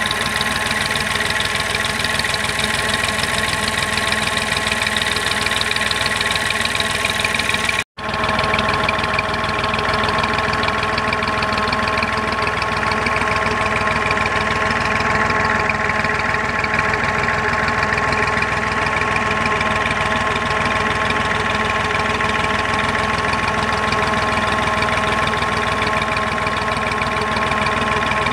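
Tractor diesel engine running steadily at constant speed while driving a water pump. It cuts out for an instant about eight seconds in, then carries on unchanged.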